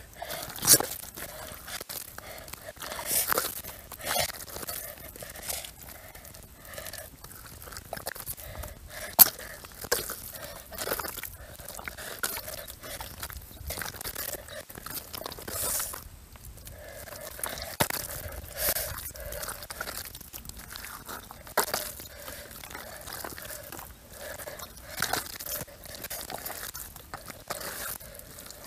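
Thick wet mud squelching and sucking as a bare hand digs and scoops it out of a hole, in irregular wet smacks.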